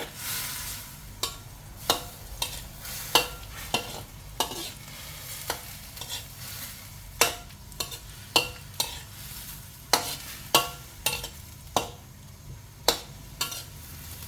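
Pork liver being stirred in a pot of boiling water, the spoon knocking against the pot in irregular ringing clinks about once a second, over a steady low rumble.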